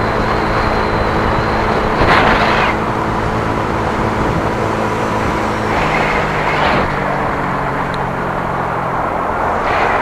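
Engine and road noise of a moving vehicle heard from the vehicle itself: a steady engine hum under a continuous rush of tyre and wind noise. The noise swells louder about two seconds in and again around six to seven seconds, and the engine note shifts to a new steady pitch about six seconds in.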